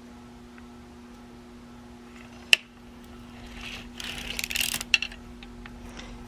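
Vintage Gearhart circular sock machine worked by hand: a sharp metal click about two and a half seconds in, then a spell of light clicking and rattling from the steel needles and cylinder, over a steady low hum.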